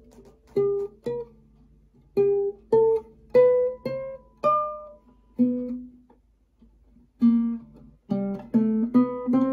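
Acoustic guitar plucked one note at a time. A little past two seconds in it plays a rising five-note G-major run, sol-la-si-do-re (G A B C D), found in the 9th position. Single notes are scattered before and after the run.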